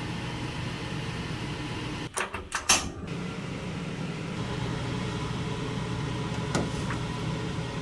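Steady mechanical hum, like a kitchen appliance's motor or an extractor fan, broken about two seconds in by a short clatter of several sharp clinks, with one more click near the end.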